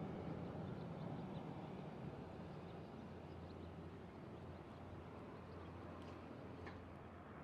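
Faint outdoor ambience: a low steady hum under an even hiss, with a few faint high chirps.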